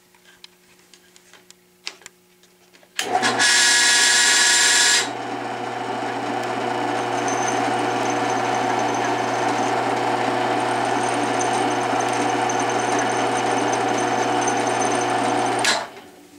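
A Klutch 13-inch 3/4 hp floor-mount drill press motor is switched on for its first run after assembly. It starts suddenly and is loudest, with a whine, for the first two seconds. It then settles into a steady run of motor, belt and spindle. Near the end it is switched off and stops quickly.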